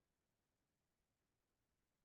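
Near silence: a pause in the speech with no audible sound.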